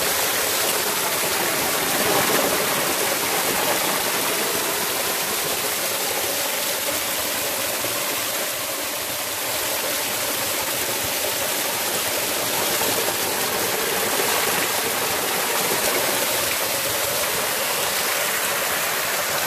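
Small mountain creek splashing down a little cascade over rocks: a steady rush of water.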